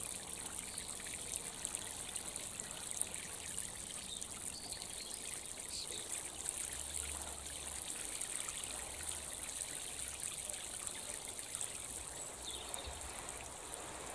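Steady trickle of running water, with a few faint high chirps.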